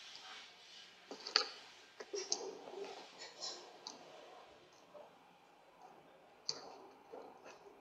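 Scattered sharp clicks and light taps, a few to a second at most and irregular, over a faint hiss.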